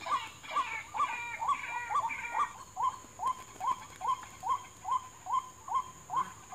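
White-breasted waterhen call, short rising notes repeated evenly a little over two a second, as used to lure the birds to snares. Higher, harsher calls sound over it for the first two and a half seconds.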